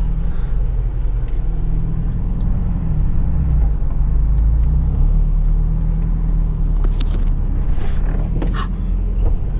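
A 4x4 SUV driving over soft dune sand, heard from inside the cabin: a steady low rumble of engine and tyres, the engine note wavering a little, with a few clicks and knocks in the last few seconds.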